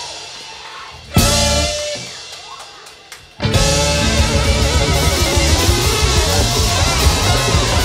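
Live ska/hip-hop band with a saxophone horn section, drums, guitar and keyboard. About a second in comes one loud band hit that rings away. About three and a half seconds in the full band crashes back in and plays on loudly.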